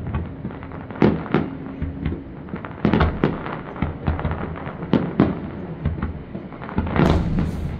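Aerial fireworks shells bursting, heard as sharp bangs at irregular intervals, often two close together. Near the end comes a louder, denser cluster of bangs and crackle.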